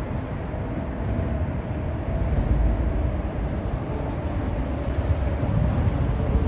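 Steady low rumble of vehicles, growing a little louder about two seconds in.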